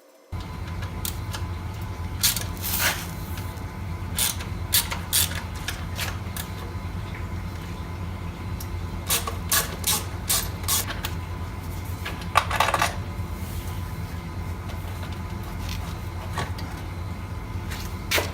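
Metal tools and motorcycle exhaust parts clinking and knocking as the exhaust silencer is unbolted and taken off. There are a dozen or so sharp clicks scattered through, over a steady low hum.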